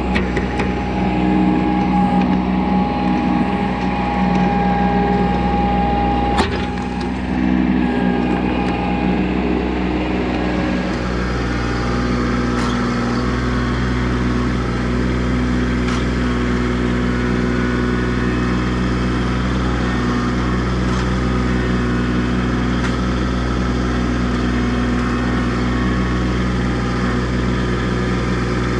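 Kubota B2650 tractor's three-cylinder diesel running steadily while it works the BH77 backhoe, its note shifting about eleven seconds in. A single sharp crack about six seconds in.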